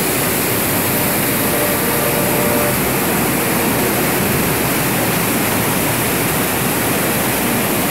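A waterfall's water rushes steadily, a dense, unbroken noise close by.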